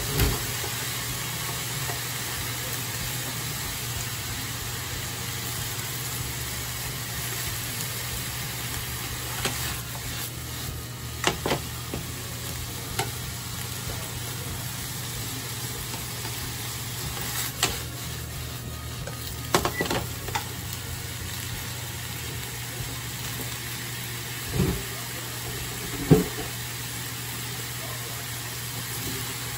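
Sliced beef and onion sizzling in a frying pan as they are stirred, a steady hiss with a low steady hum under it. Scattered sharp knocks of the utensils against the pan come from about a third of the way in, the loudest near the end.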